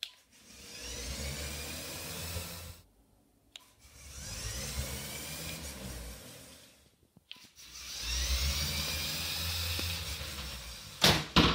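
Lego Technic Powered Up XL and L motors driving two small cars across a laminate floor: a whirring gear whine that rises in pitch as the cars speed up. It comes in three runs of about three seconds each. Two loud knocks follow near the end.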